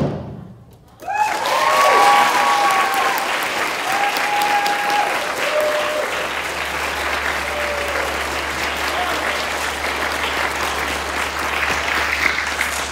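The last piano chord dies away, then about a second in an audience breaks into steady applause, with a few drawn-out whoops and cheers over the clapping in the first several seconds.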